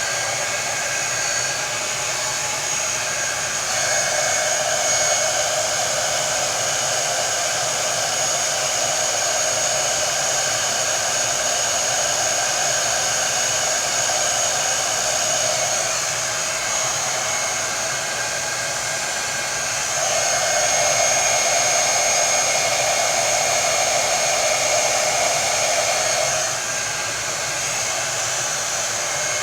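Hand-held hair dryer blowing steadily with a high whistle. It gets louder over two long stretches as it is brought closer or aimed differently.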